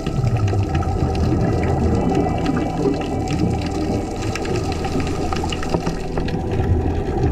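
Muffled underwater sound of scuba divers: a continuous low rumble and bubbling from regulator exhalations, with faint clicks.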